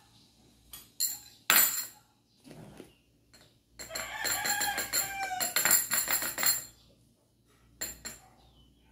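A rooster crowing once, a long call that rises and then falls, starting about four seconds in. Before it come a couple of sharp clinks of a metal spoon on a dish, the loudest sounds here, and another clink near the end.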